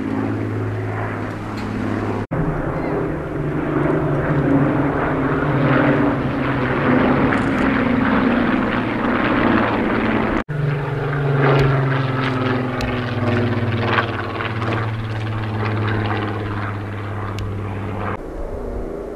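Avro Lancaster bomber flying over, its four Rolls-Royce Merlin piston engines droning steadily. The sound breaks off for an instant twice, about two and ten seconds in, where the clips are edited together.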